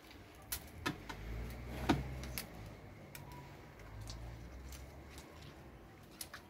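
Scattered light clicks and small rustles of a hand working through the branches and leaves of a potted succulent shrub, over a low rumble of handling noise.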